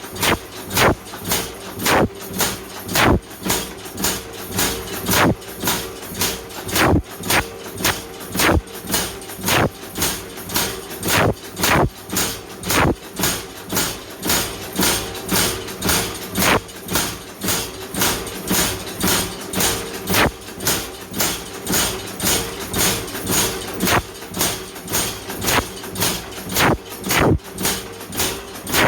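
Hammer blows on hot wrought iron, a steady rhythm of a little over two strikes a second, some heavier than others, over a constant hum.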